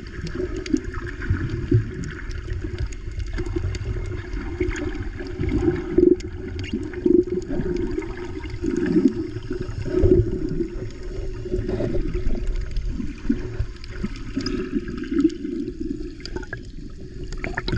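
Underwater sound picked up by an action camera in its waterproof housing just below the sea surface: muffled sloshing and gurgling of water with many small crackles and ticks.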